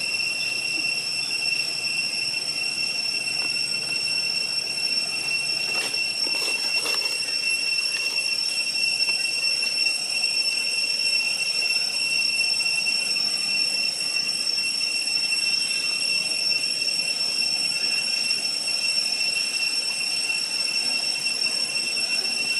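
Steady, high-pitched drone of forest insects, most likely cicadas, holding an unchanging whine. A few brief soft rustles come about six to seven seconds in.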